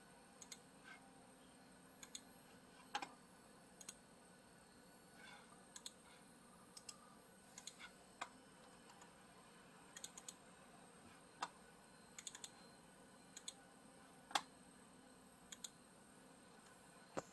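Scattered, irregular clicks of a computer mouse and keyboard, often in quick pairs, with near silence between them.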